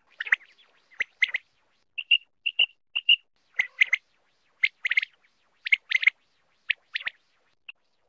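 Quail (batair) calling: short, sharp notes, mostly in pairs, repeated about once a second.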